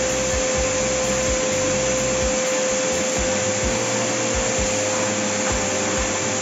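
Stick vacuum cleaner running steadily, a constant motor whine over an even rushing of air.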